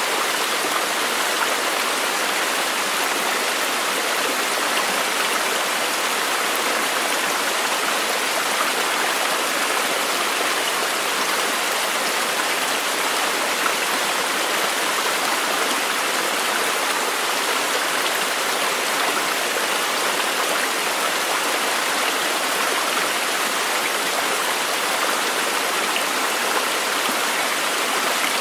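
Running water, a steady even rush with no separate splashes or drops standing out.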